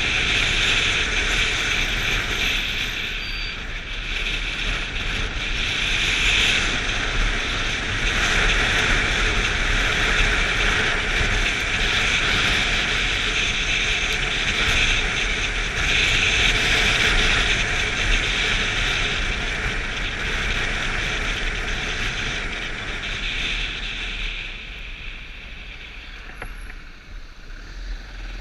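Rushing wind and running noise of a moving motorcycle, heard through an action camera mounted on the bike; it swells and eases with speed and dies down a few seconds before the end as the bike slows at a junction.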